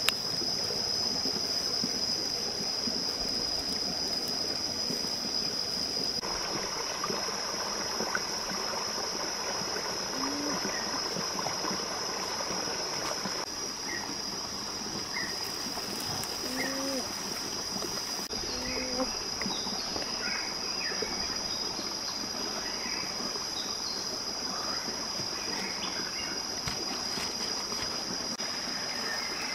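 Shallow forest stream running and trickling over rocks, with a steady high-pitched drone throughout and a few short chirps in the middle and latter part.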